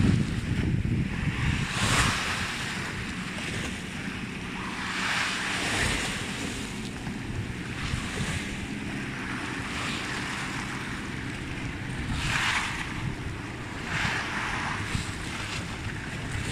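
Small waves washing in at the water's edge, swelling every few seconds, over a steady low rumble of wind on the microphone.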